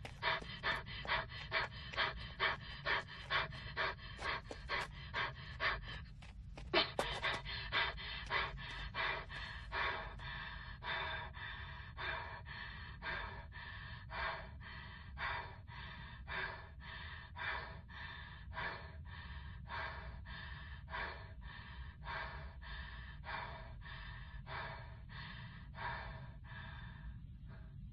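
Heavy, rhythmic panting of a runner wearing a spacesuit helmet, about two breaths a second, over a steady low rumble. It breaks off briefly about six seconds in, then picks up again with a sharper gasp.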